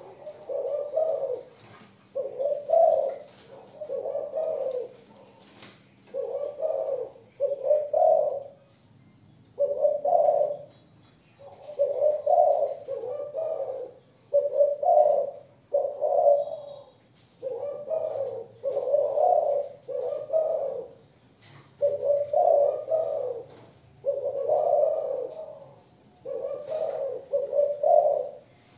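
Spotted dove cooing, a young Malaysian-strain hen. It repeats low coo phrases over and over, often two or three close together, then a short pause.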